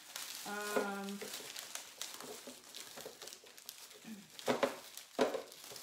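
Hands rummaging in a cardboard box of small paint jars as they are lifted out: continuous crinkling and rustling with small clicks, and two louder knocks near the end.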